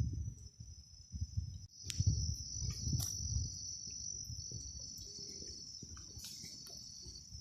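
Insects trilling steadily on one high pitch, over low, uneven rumbling that fades gradually.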